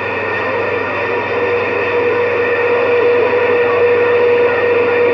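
CB radio receiver hissing with static once the microphone is released, a steady whistling tone running through the noise. A weak, distant skip station is barely coming through underneath.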